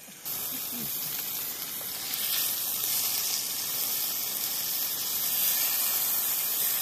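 Ground sirloin burger patties sizzling in a frying pan over a gas-canister camp stove: a steady hiss that begins just after the start and grows a little louder about two seconds in.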